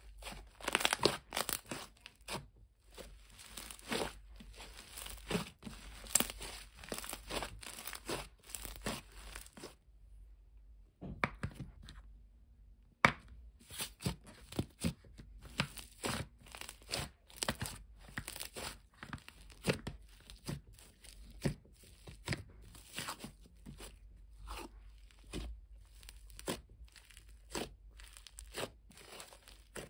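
Thick, creamy butter slime being kneaded, folded and pressed by hands, making a run of sticky crackles, pops and tearing sounds as it stretches and peels apart. A quiet break of a couple of seconds comes about ten seconds in.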